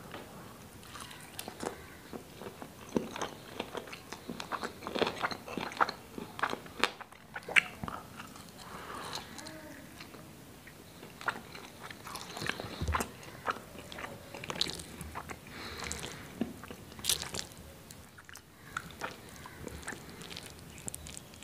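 Close-miked mouth sounds of a man biting and chewing hand-fed mouthfuls of chickpea curry with rice: many short, irregular clicks and smacks.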